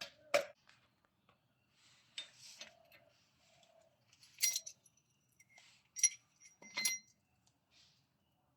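Metal tools and wheel-bearing parts clinking and tapping during a wheel bearing replacement: a few sharp metallic strikes with brief ringing, about four and a half, six and seven seconds in, with fainter handling and scraping between them.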